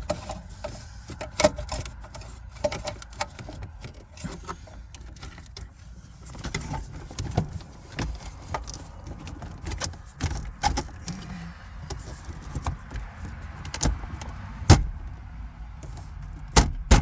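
Irregular clicks, knocks and rattles of dashboard parts and trim being handled and fitted back into a car's dash, with a couple of louder knocks near the end.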